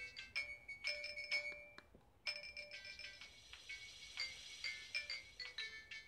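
Nokia 1662 ringtone playing through the phone's small built-in loudspeaker: a bright melody of chime-like notes, with a short break about two seconds in before the tune picks up again.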